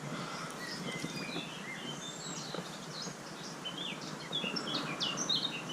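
Small songbirds chirping in quick, short notes, busier near the end, over a low steady outdoor background hiss.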